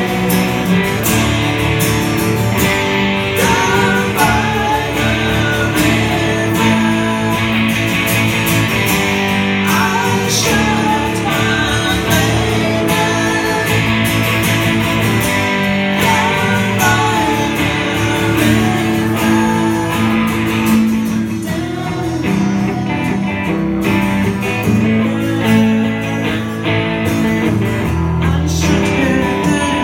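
Live band playing a song on electric and acoustic guitars, with a voice singing over the strumming.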